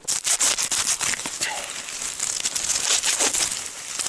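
Dry reed stalks rustling and crackling as they are cut and gathered by hand, a dense run of quick snaps and crinkles.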